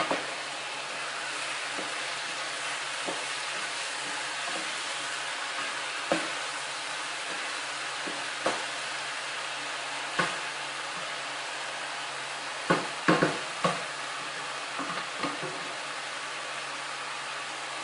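Chopped peppers frying in oil in a pan, a steady sizzle as their water cooks off, with a spoon stirring and knocking against the pan now and then and a quick run of knocks about 13 seconds in.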